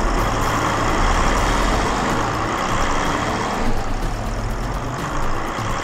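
Bus engines running as several buses drive off one after another, a steady engine and rumble noise that eases off after about three and a half seconds.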